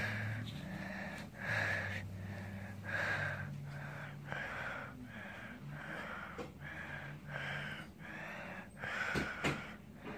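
A small long-haired dog breathing heavily right at the microphone, in a steady rhythm of short breaths about one and a half a second, with a faint low hum underneath.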